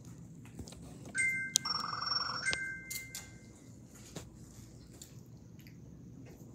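An electronic ringtone-like tone, several steady pitches with a warbling trill beneath them, sounds a little over a second in and lasts about a second and a half. Light clicks and knocks of handling are heard around it.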